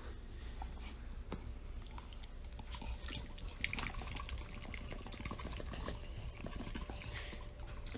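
Small water sounds: dripping and light splashing made of many little ticks, over a low hum.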